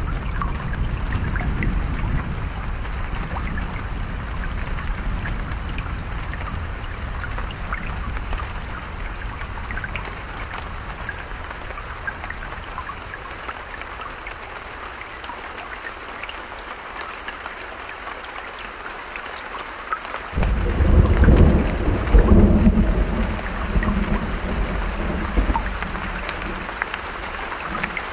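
Steady rain falling, with a low thunder rumble dying away over the first half. About twenty seconds in, a sudden clap of thunder breaks and rolls on for several seconds.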